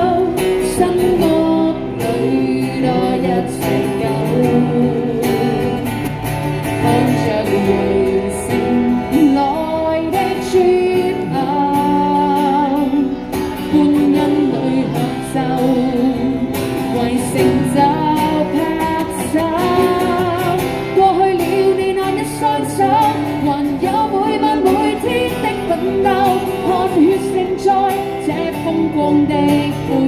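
Live busking performance: a man and a woman sing a pop song into microphones to a strummed acoustic guitar, heard through a small portable amplifier.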